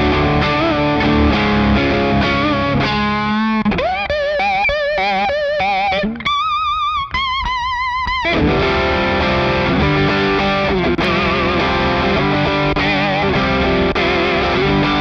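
Electric guitar played through an EarthQuaker Devices Aqueduct vibrato pedal into a Fender Deluxe Reverb amp, its notes wobbling in pitch. The wobble is widest and most obvious on high held notes from about four to eight seconds in, and milder on the chords around them.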